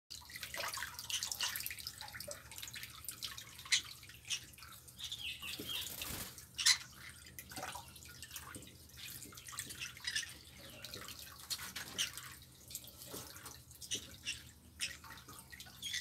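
Kitchen tap water running over a parrot in the hands and splashing into a stainless-steel sink, with many irregular sharp splashes and drips.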